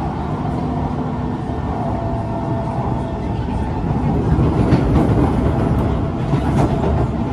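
Singapore MRT C151 train running between stations, heard from inside the car by the door: a steady rumble of wheels on rails with traction motor noise. It grows louder around the middle, with a few sharp clacks from the track.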